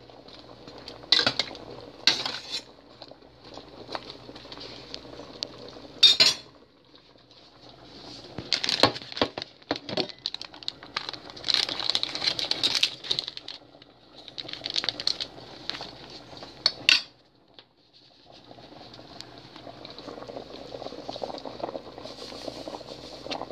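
Water boiling in a metal cooking pot, with metal utensils clinking against the pot several times. The clinks stop after a last sharp one about 17 seconds in, and the boiling carries on steadily.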